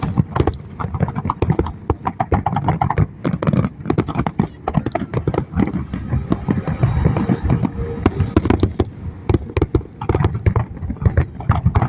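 Fireworks going off in rapid succession: a dense, unbroken stream of cracks and bangs, many a second.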